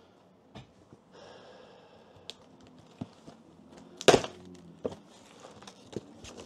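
A cardboard shipping box being handled and pulled at: scattered knocks and scraping, with one loud crack about four seconds in.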